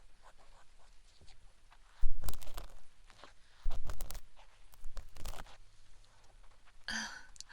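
Wooden ear pick scraping and scratching in the ear close to a binaural microphone: faint scratches at first, then three louder bouts of scraping and rustling.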